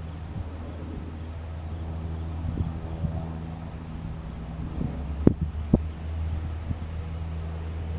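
Insects chirring in a steady high-pitched drone over a low steady hum, with two sharp knocks about five and a half seconds in.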